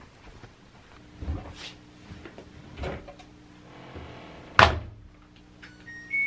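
Front-loading washing machine door shut with a loud thump, after a couple of softer knocks. Near the end the machine's control panel gives short electronic beeps as it is switched on.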